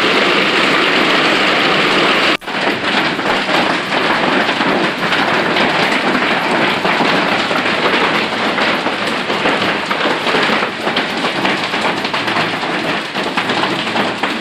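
Hail with rain pelting down on a patio and yard, a loud dense patter of countless sharp ticks. It breaks off for an instant about two and a half seconds in, then carries on.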